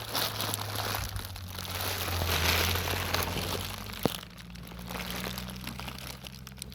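Plastic bags crinkling and rustling as rubbish is handled, loudest in the first half, with one sharp click about four seconds in, over a steady low hum.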